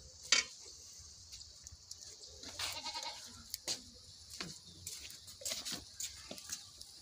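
A goat bleating faintly a few times, with a few light clinks of a metal ladle against a cooking pot.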